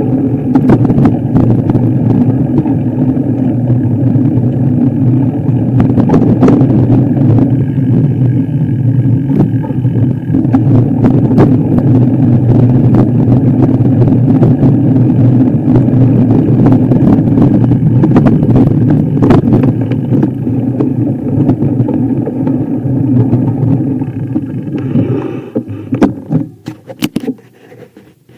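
Motor vehicle driving over rough ground, its engine running steadily under load with frequent knocks and clatter. The sound drops away sharply near the end.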